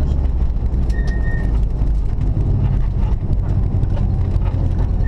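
Subaru Impreza rally car's flat-four engine running under load, heard from inside the cabin, with heavy road and drivetrain rumble. A short high tone sounds about a second in.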